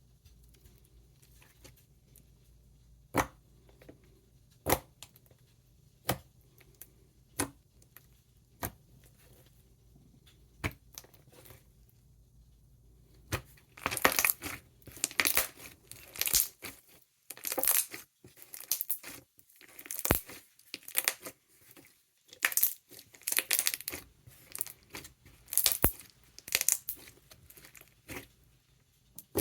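Thick, silken-tofu-texture slime being played with by hand. It makes single sharp bubble pops every second or so, then about halfway through a dense run of loud, crisp clicks and crackling as it is squished and folded.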